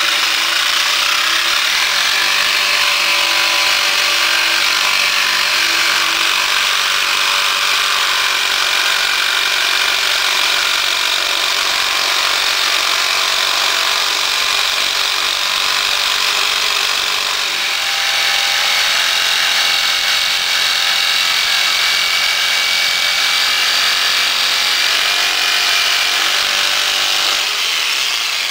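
Corded jigsaw running steadily as its blade cuts a curved decorative profile into the end of a wooden board, stopping near the end.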